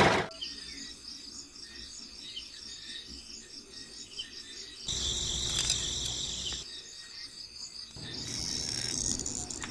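Crickets chirping in a steady, pulsing rhythm, with louder hissing stretches coming in about five seconds in and again near the end.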